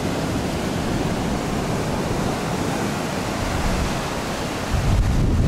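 Rough surf washing onto a beach, a steady rushing noise. Near the end, wind starts buffeting the microphone with a low rumble.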